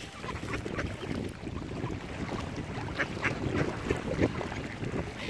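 Mallard ducks quacking: a string of short, separate calls, the loudest about three seconds in, over a steady low rumble.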